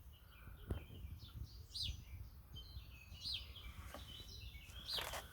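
Common blackbirds calling: a series of sharp, downward-sweeping chirps about every second or two, with short high piping notes between them. There is a faint knock under the first chirp.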